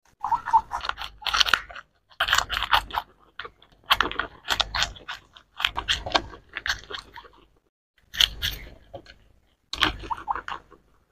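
Two guinea pigs biting into and chewing a hand-held strawberry. The chewing is quick and crunchy, and comes in about six bursts of rapid bites separated by short pauses.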